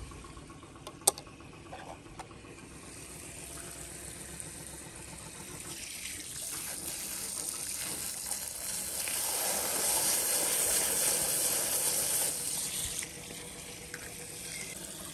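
Running water, growing louder from about six seconds in and stopping suddenly about two seconds before the end. A single sharp click about a second in.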